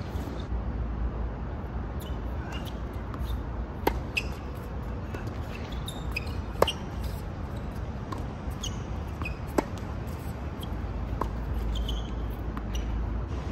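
Tennis rally on a hard court: a handful of sharp pops from racket strings striking the ball and the ball bouncing, a few seconds apart, the loudest from the near player's forehands. A steady low rumble of wind and distant traffic sits underneath.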